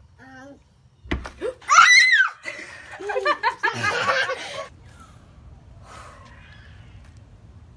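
A young child gives a loud, high squeal about a second in, then laughs for about two seconds.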